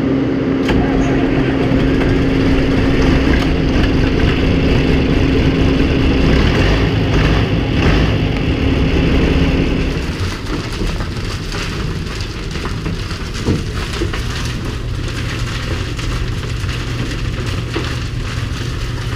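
New Holland tractor engine running steadily, with a held drone over the engine noise. About ten seconds in the sound drops slightly and settles into a lower, steady engine hum.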